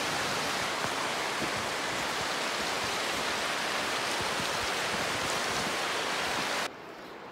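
Steady rushing of a river's flowing water, an even hiss with no breaks, cutting off abruptly near the end.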